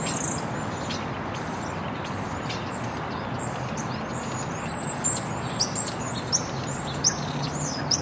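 Songbirds chirping in many quick, high-pitched calls over a steady hum of city noise, in an unfiltered Earth recording. The chirping grows busier in the second half.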